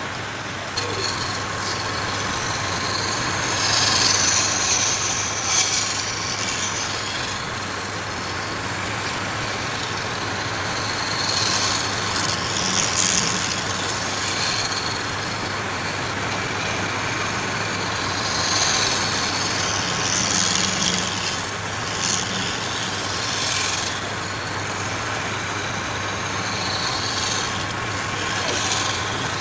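A woodworking power tool's motor running steadily, with several hissy bursts lasting a few seconds each as it cuts into wood.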